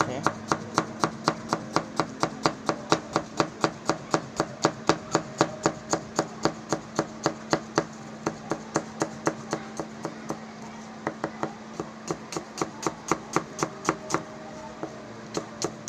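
Kitchen knife finely chopping a red onion on a plastic cutting board: quick, even chops about four to five a second, which turn sparser and more irregular after about ten seconds.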